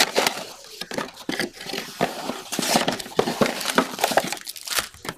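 Plastic shrink-wrap crinkling and tearing as it is stripped off a cardboard trading-card box, with dense crackling and rustling that goes on as the box is opened and handled.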